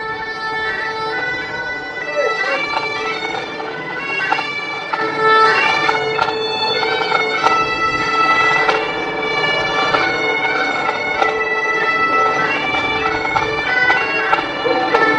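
Highland bagpipes playing a tune over their steady drone, growing louder about five seconds in.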